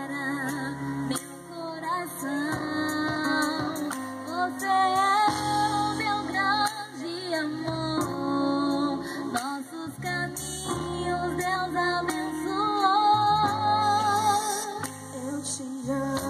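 Live band music: electric bass, keyboard and saxophone playing a slow love song, with a woman singing the melody.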